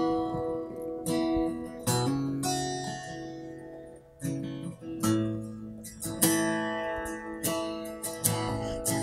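Solo acoustic guitar playing the instrumental introduction to a song: strummed chords about a second apart, each left to ring.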